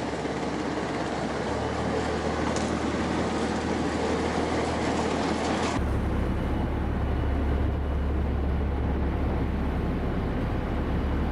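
Boat engine running steadily under the rush of wind and water. About six seconds in the sound changes abruptly and the low engine drone becomes louder.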